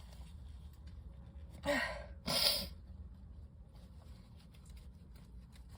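A woman's sneeze during a dust-triggered sneezing fit: a short gasping intake of breath about a second and a half in, followed at once by the loud, sharp burst of the sneeze itself.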